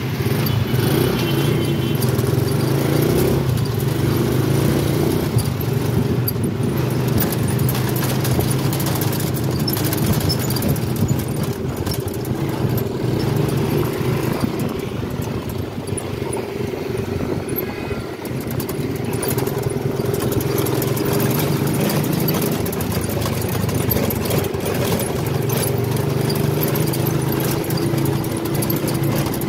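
Motorcycle engine running steadily at low speed, easing off briefly about halfway through and picking up again.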